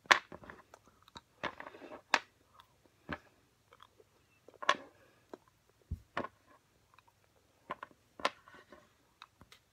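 Wet mouth noises of a person cramming chocolate candies into the mouth: scattered sharp smacks and clicks with short breaths between them.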